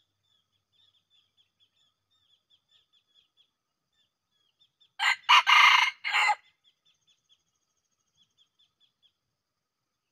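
Red junglefowl rooster crowing once about five seconds in: a short, clipped crow in a few parts. Faint, quick high chirps repeat in the background around it.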